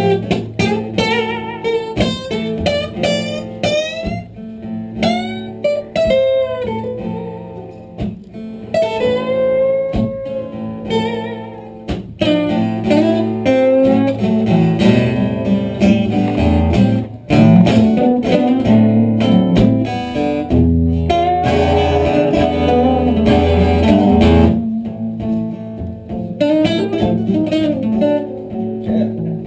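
Blues-style instrumental break on guitars during a live performance of the song, with a lead line of bending, sliding notes over steady plucked and strummed accompaniment.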